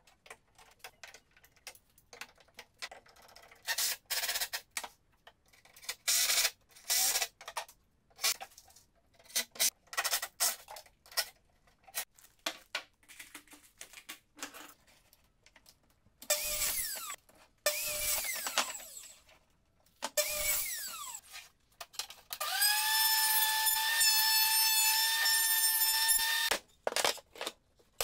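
Power drill run in many short trigger bursts. After a few of them the motor's whine falls in pitch as it winds down, and near the end it runs steadily for about four seconds as the loudest part.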